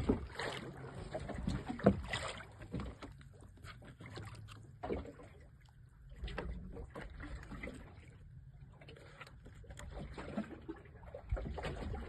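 Water slapping and lapping against the side of a small wooden fishing boat, with irregular knocks and thumps on the hull as a large fish is held and handled against it. The loudest knock comes about two seconds in.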